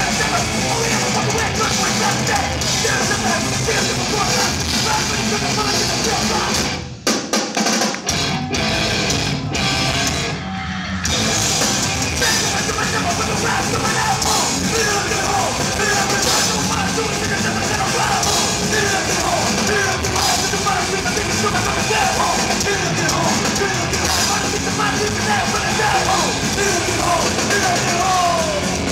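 A crossover thrash metal band playing live through a concert PA, heard from the crowd: distorted guitars, bass and fast drums. The sound breaks off briefly about seven seconds in and dips again around ten seconds.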